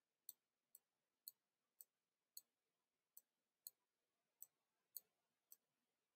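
Near silence with faint, sharp clicks about twice a second at slightly uneven spacing: a computer mouse button pressed and released for each pen stroke while handwriting on an online whiteboard.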